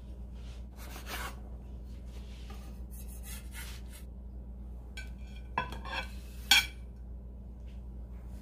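A blade cutting through a toasted flour-tortilla quesadilla: several short scraping strokes, then a few sharp clicks of the blade against the surface beneath, the loudest about six and a half seconds in.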